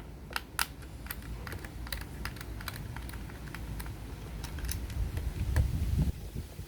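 Light, irregular clicks and ticks of a small screwdriver backing screws out of an Xbox Series X controller's plastic shell, with handling rumble about five seconds in.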